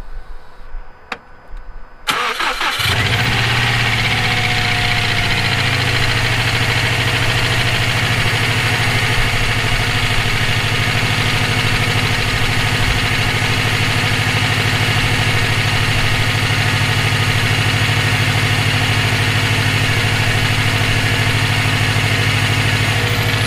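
Subaru EJ257 turbocharged 2.5-litre flat-four being started: a couple of faint clicks, then about two seconds in it cranks and catches, runs briefly at a fast idle and settles into a steady idle. The owner calls the engine's noise nasty and is unsure whether it is rod knock, a spun bearing or valve lash needing adjustment.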